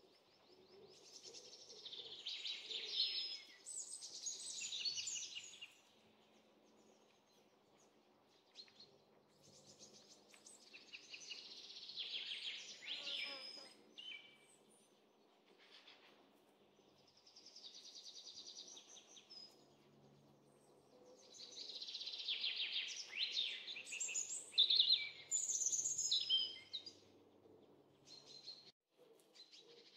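A songbird singing in four bouts of rapid, high twittering trills, each a few seconds long, over faint outdoor background noise.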